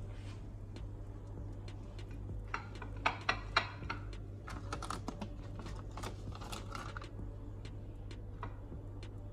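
Table knife scraping and clicking while spreading onto slices of white bread on a china plate, with a cluster of sharp clicks about three seconds in and lighter scraping after.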